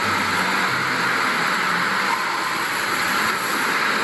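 Steady rush of running water, as from a tap or spray, with no break or change in level.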